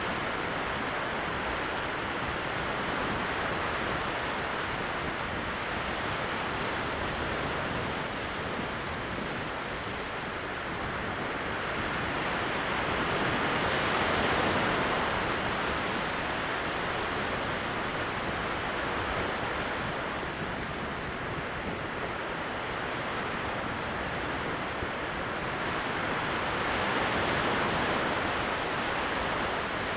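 Gentle sea surf: small waves breaking some way offshore across wide sand flats at very low tide. It makes a steady wash that swells briefly about halfway through and again near the end.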